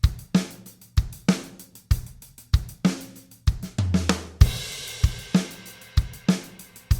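Music with a drum-kit beat, sharp hits about three a second, and a cymbal crash with a low bass note a little over four seconds in.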